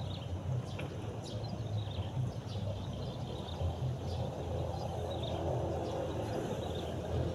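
Steady low outdoor rumble, with short high chirps of small birds scattered through it.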